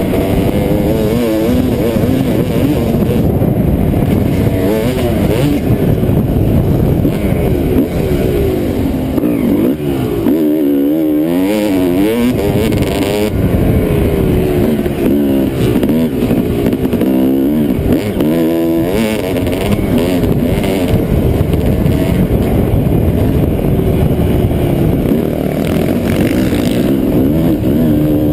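2007 Suzuki RM 250's two-stroke single-cylinder engine under hard riding, its pitch repeatedly rising and falling as the throttle is opened and closed and the bike shifts through the gears.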